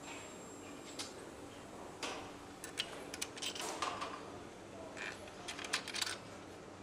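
Light metallic clicks and clinks as a gloved hand seats an alternator against the cast aluminium bracket of a Mercedes-AMG V8 engine. One click comes about a second in, then two clusters of rattling clicks about midway and near the end, over a steady factory hum.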